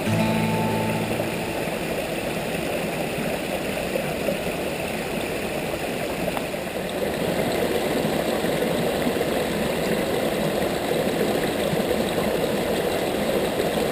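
Creek water rushing and splashing over low rock ledges in small cascades, a steady noise that gets a little louder about halfway through.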